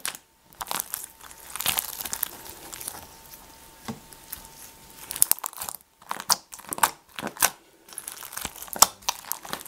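Clear slime packed with foam balls being squeezed, kneaded and stretched by hand, giving dense, irregular wet clicks and crackles. The slime is freshly made and still sticky on the fingers.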